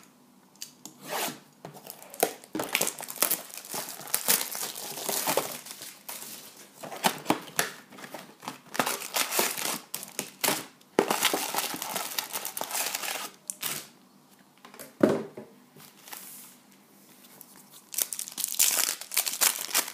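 Cellophane shrink-wrap crinkling and tearing as it comes off a box of trading cards, with paper packs and card stock being handled. Near the end a foil card pack crinkles as it is torn open.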